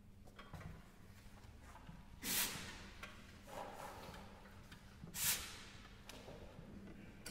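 A concert hall hushed between the movements of a concerto: two short coughs from the audience, about two seconds in and again about three seconds later, over faint room hum and rustling.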